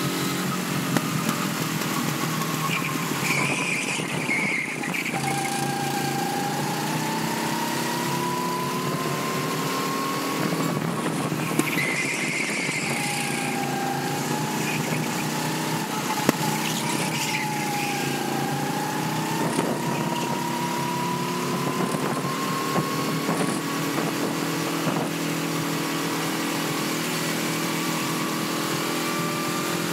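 Go-kart engine running hard while lapping a track, its pitch rising and falling with speed through the corners, over a steady rush of noise. Two brief higher-pitched sounds break in, about four and twelve seconds in.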